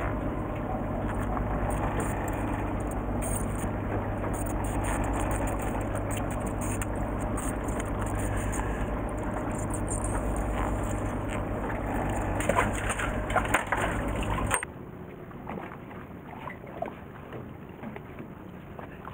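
Fishing boat's engine running with a steady low hum, which cuts off suddenly about three-quarters of the way through. A few light clicks and knocks come just before it stops, and faint scattered ticks follow.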